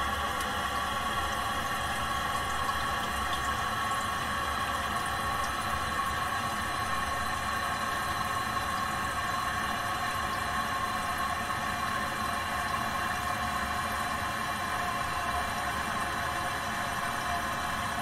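Toilet cistern refilling: water running in through the fill valve with a steady hiss and a few held tones, unchanging throughout.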